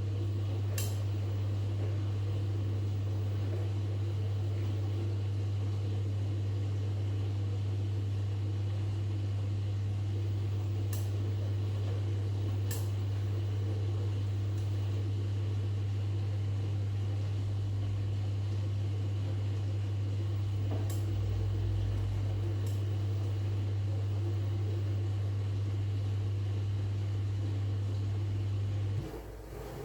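Washing machine running with a steady low hum and a few faint clicks; the hum cuts off suddenly near the end.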